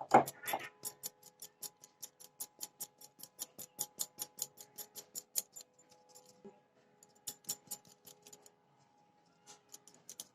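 Flour being sifted through a hand sieve: rapid, even tapping clicks, about five a second, that stop twice for a moment before going on.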